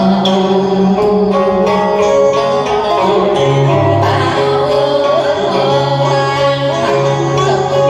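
Music: a plucked guitar melody over sustained bass notes.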